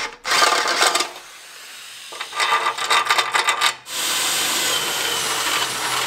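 Ryobi drill spinning a step drill bit through the car's hood panel. It cuts in short bursts, then runs steadily from about four seconds in.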